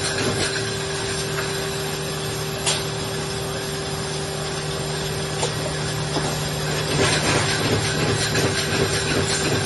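Alfons Haar sheetfeed press running: a steady mechanical hum with a sharp click about three seconds in, and louder, quicker clatter starting about seven seconds in.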